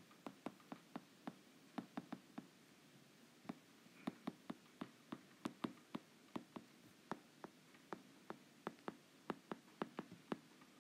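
Stylus clicking and tapping on a tablet screen while words are handwritten: quick, irregular light clicks in runs, with a short pause about three seconds in.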